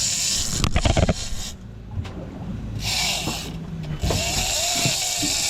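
Boat engine running low and steady, with a mechanical whirr that stops and starts twice and a few knocks about a second in.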